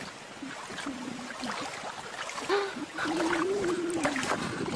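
An animal's wavering vocal calls: a couple of short ones about a second in, then one long, drawn-out call from just past halfway to near the end.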